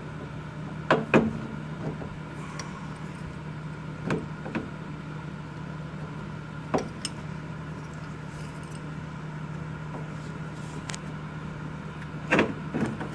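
Scattered clicks and knocks of metal parts as an Audi A4 B8 engine mount is handled and pushed into place under the engine. The loudest pair comes near the end, over a steady low hum.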